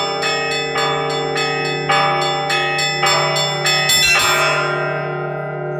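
Orthodox Paschal church-bell ringing: smaller bells struck in a quick rhythmic peal, about two strikes a second, over the steady hum of a large deep bell. About four seconds in comes a last cluster of strikes; then the smaller bells fall silent and the deep bell rings on alone.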